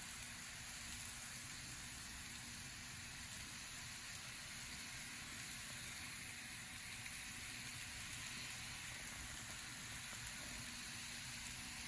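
Steady hiss with a faint low hum underneath, and no distinct event.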